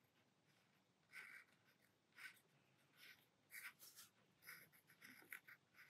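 Faint scratching of a pencil drawing short strokes over tracing paper, transferring a design onto the paper underneath; the strokes come about once a second at first and closer together in the second half.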